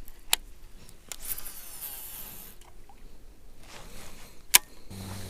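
Fishing gear being handled in a kayak: a sharp click, then a rustling hiss, then a second, louder click about four seconds later. A steady low hum starts near the end.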